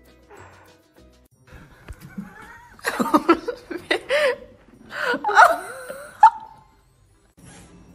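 A person laughing hard in two bouts, about three and five seconds in, over faint background music.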